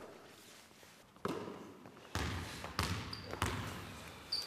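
Basketball bouncing on a wooden gym floor, a few separate bounces starting about a second in. Near the end there is a brief sneaker squeak.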